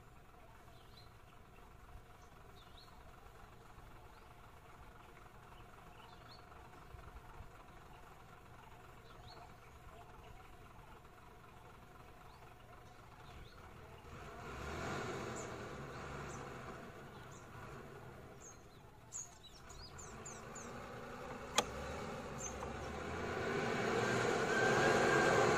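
A vehicle engine idles steadily while small birds chirp. About halfway in, engine noise swells louder, fades briefly, then builds again to its loudest near the end. A single sharp click comes a few seconds before the end.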